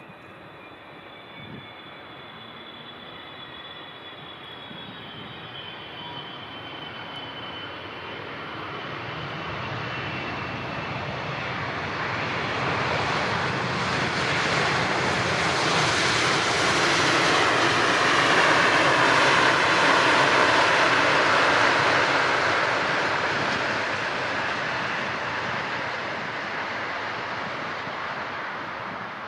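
Airliner on approach to land, flying past: its engine noise swells slowly to a peak about two-thirds of the way through and then fades. A faint high engine whine sinks slowly in pitch over the first several seconds.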